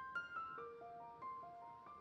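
Background music: a light keyboard melody of short single notes, changing several times a second.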